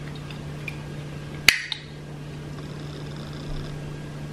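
A single sharp metallic click about a second and a half in, with a smaller click just after, from a metal cuff bracelet being slipped onto a wrist, over a steady low hum.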